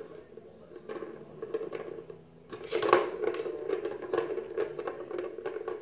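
Balls rolling and rattling around the plastic track of a round ball-track cat toy as kittens bat at them, a steady rolling rumble with short plastic clicks and a louder clatter about three seconds in.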